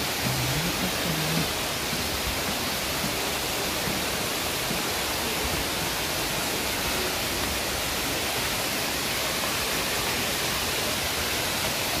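Steady rush of a tall waterfall falling onto boulders, an even wash of water noise.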